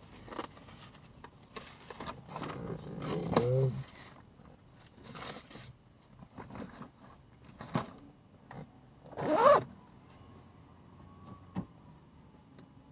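Handling of a plastic takeout bag and an insulated delivery bag: crinkling plastic and zipper pulls in short, irregular scrapes, loudest about three and a half and nine and a half seconds in.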